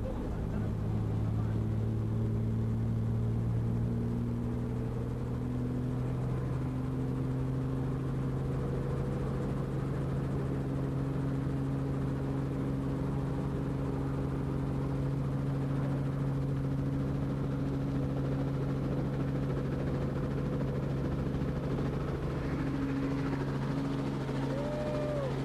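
Helicopter engine and rotor running steadily in flight, a constant low drone whose pitch rises slightly over the first several seconds.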